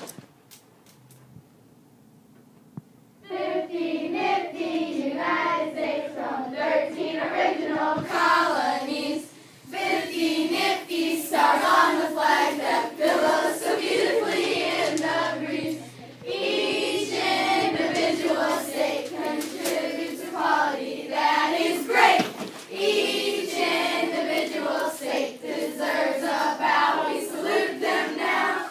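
A class of schoolchildren chanting a state rap together in unison, starting about three seconds in after a quiet opening, with a couple of short breaks.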